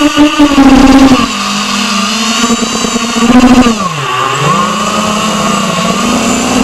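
Eachine Wizard X220 racing quad's brushless motors and propellers whining loudly, heard from the aircraft itself, the pitch shifting with the throttle. About four seconds in the pitch drops sharply, then climbs back as power comes up again.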